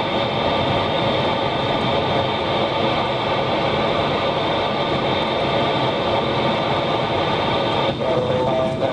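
Steady hiss of FM receiver static from a 2 m amateur transceiver with the squelch open on the CAPE-2 satellite's beacon frequency, mixed with car road noise in the cabin. A few brief tones break through near the end.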